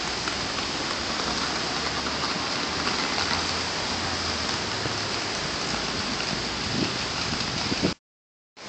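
City street ambience: a steady hiss with a low traffic rumble. The sound cuts out completely for about half a second near the end.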